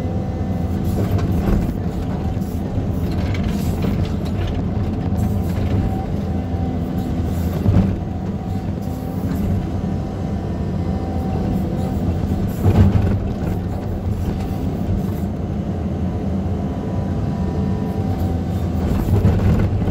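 Caterpillar 320D2 hydraulic excavator's diesel engine running steadily under working load, heard from inside the cab. A few short knocks come from the bucket working the loose soil, the loudest about thirteen seconds in.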